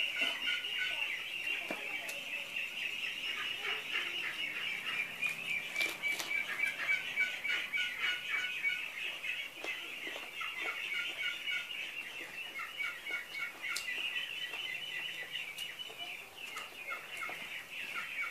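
A flock of ducks calling continuously, a busy stream of short, rapid quacks and chatter.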